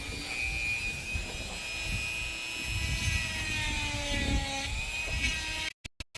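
Dremel rotary tool running at high speed as it carves fine detail into wood: a steady high whine whose pitch dips slightly under load. Near the end it cuts off abruptly into a few short stutters.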